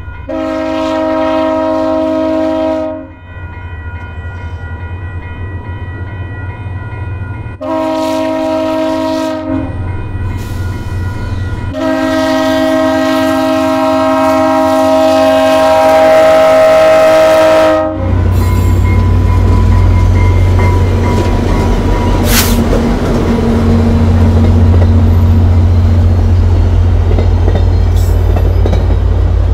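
VIA Rail F40PH diesel locomotive's multi-chime air horn sounding three blasts for a level crossing, the last held longest, over the steady ringing of the crossing signal bell. Then the train passes close by, with a loud low rumble from the diesel and the wheels clattering over the rail, and one sharp crack partway through.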